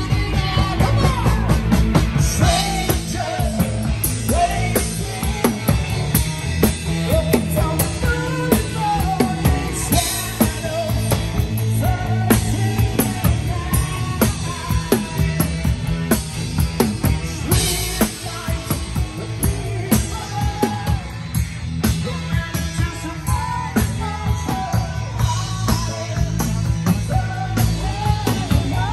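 Live rock band playing: a drum kit keeping a steady beat under electric guitars and a singing voice.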